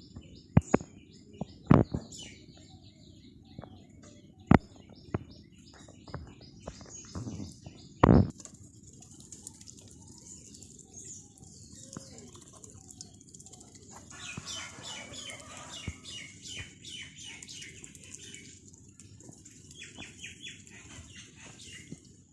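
Birds calling: repeated short high chirps, with a fast run of calls about two-thirds of the way in and another shorter run near the end. Several sharp, loud knocks in the first eight seconds are the loudest sounds.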